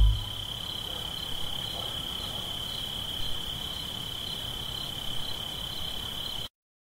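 Crickets chirping: one steady high trill over a faint hiss, cutting off suddenly about six and a half seconds in.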